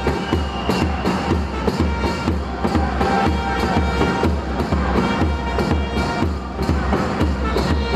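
Music with a steady bass-drum beat.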